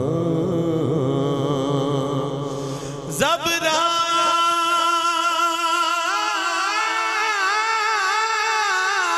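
Unaccompanied naat: low male voices chant with a wavering drone, then about three seconds in a solo male reciter comes in loud through the microphone on a high, long-held note with wavering melismatic ornaments and no words.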